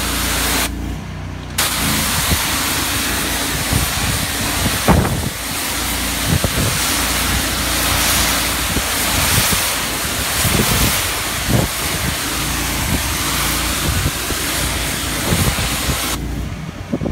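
High-flow pressure washer (3500 PSI at 8 GPM) blasting a water jet onto concrete with a loud, steady hiss, over the constant hum of its twin-cylinder Honda GX690 engine. The spray cuts off briefly about a second in and again near the end, while the engine keeps running.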